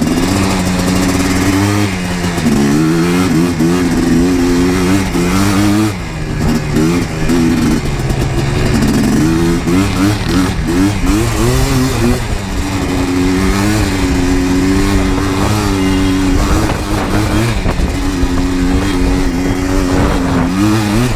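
Yamaha Blaster 200's two-stroke single-cylinder engine running under way, its pitch rising and falling again and again as the throttle is opened and eased off.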